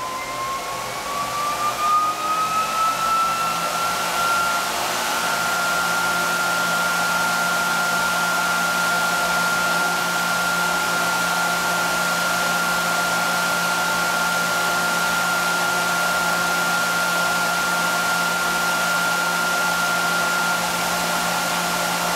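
Motor-driven generator test rig spinning up: its whine rises in pitch over the first four or five seconds, then holds at a steady speed with a steady whine over a hiss.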